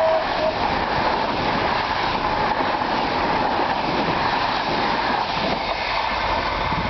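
Passenger train coaches rushing past close by on the rails: a steady, loud rush and clatter of wheels on track.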